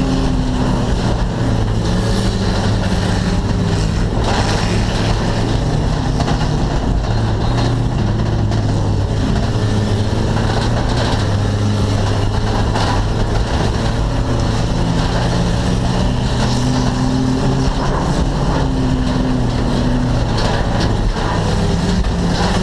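Stock car engine running hard from inside the stripped-out cockpit, its pitch stepping up and down with throttle and gear changes.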